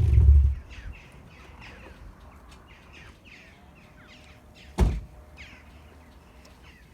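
Mazda MX-5 engine with a BBR Cobra exhaust dying away in the first half-second, then small birds chirping in quick repeated calls. A single loud thud comes about five seconds in.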